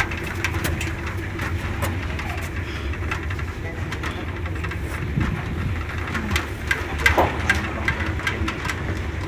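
Truck engine running steadily under way, heard from the open cargo bed, with scattered clicks and knocks from the bed's metal railings rattling as it drives.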